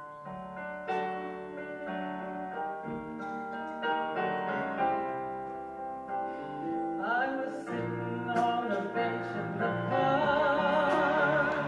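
Live band music: an electric keyboard plays a piano-sound introduction, and about seven seconds in a woman's voice comes in singing, holding notes with a wide vibrato near the end.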